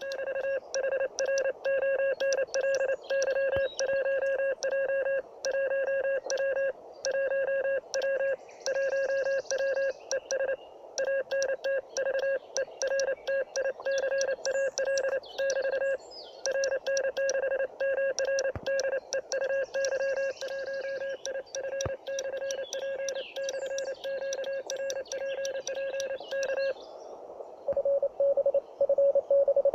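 Morse code (CW) from a homemade 1 W transceiver, played through a small loudspeaker: a mid-pitched beep keyed rapidly on and off in dots and dashes. The keying stops near the end, and a steadier tone follows.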